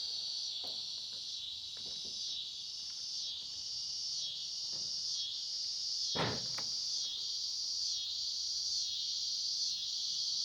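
Steady chorus of insects trilling high, swelling and fading about once a second. A few faint clicks and one louder knock about six seconds in.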